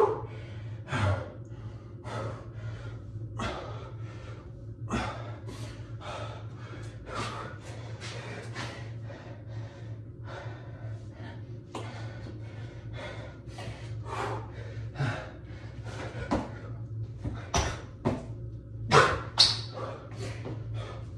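A man breathing hard, with short gasping breaths about once a second, as he recovers from burpees and then starts another rep. The breaths are loudest near the start and again near the end, over a steady low hum.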